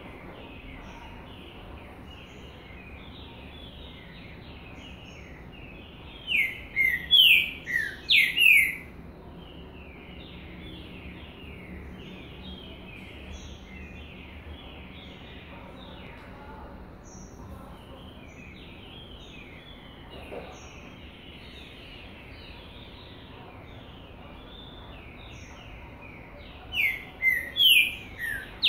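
Songbird singing: two loud phrases of quick, falling notes, about six seconds in and again near the end, over a steady background chatter of birds chirping.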